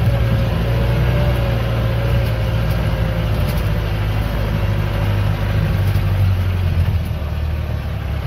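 Off-road jeep's engine running at low speed, heard from inside the cab as the jeep crawls along a dirt track, with a steady whine above the engine hum that sinks slightly in pitch.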